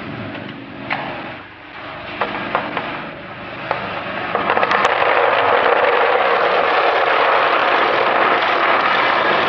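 Roasted peanuts discharging from a stainless steel drum roaster down its chute: first a few scattered clicks of single nuts dropping, then from about four seconds in a dense, steady rattle as the batch pours out, over the low hum of the running machine.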